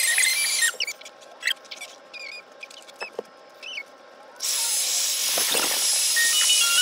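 Handheld hair dryer blowing a steady hiss, which stops abruptly about a second in and starts again about four and a half seconds in. Music plays underneath the dryer.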